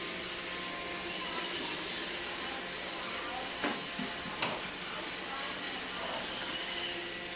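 Roomba robot vacuum running with a steady hiss, with two sharp knocks about three and a half and four and a half seconds in.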